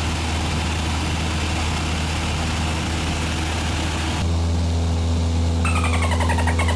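Light propeller plane's engine droning steadily, heard inside the cabin. The drone changes character about four seconds in, and a short falling chirp sounds near the end.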